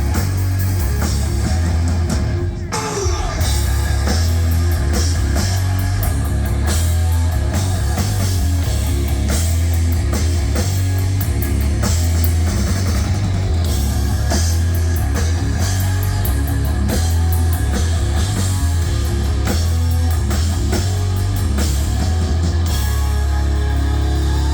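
Live heavy metal band playing loud, with distorted electric guitar, heavy bass and a pounding drum kit. About two and a half seconds in the music briefly drops out, followed by a falling guitar slide, and then the full band continues.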